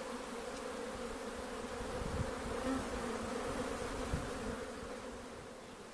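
Honey bees buzzing in large numbers at the hive entrances of a mobile bee trailer, a steady hum of many wings. It is a busy flight of foragers returning loaded with white acacia nectar.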